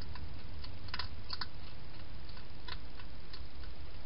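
Wild hedgehog eating inside a plastic feeding box: a few sharp, crunching clicks, two close together about a second in and more near the end, over a steady low hum.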